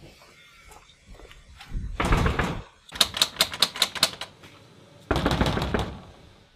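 A locked aluminium-framed sliding glass door being rattled hard by its handle. There are three bouts of clattering; the middle one is a rapid run of sharp knocks, about eight a second.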